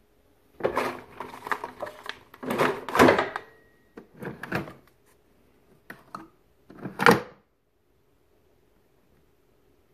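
Handling noise: five short bursts of clattering and rustling, the loudest about three seconds and seven seconds in.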